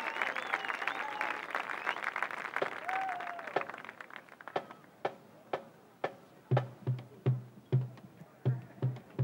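Crowd applause and cheers fading out, then a marching band drumline starting up: sharp stick clicks about two a second, with bass drums joining in a steady beat a couple of seconds later.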